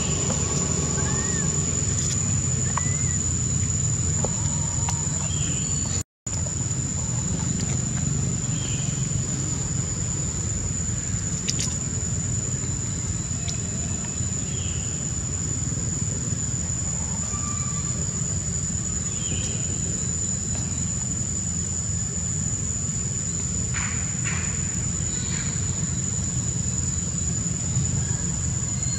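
Outdoor ambience: a steady, high-pitched insect drone over a constant low rumble, with a few short chirps and calls scattered through. The sound cuts out completely for a moment about six seconds in.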